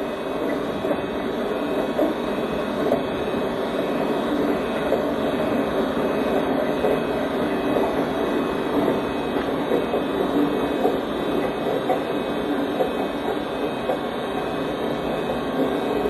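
Steady rumble of a train rolling on rails, with faint clatter and no horn or single loud event standing out.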